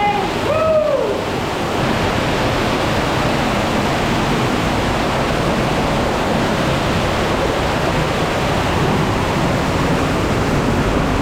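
Underground cave waterfall: a steady, loud rush of falling water with no break.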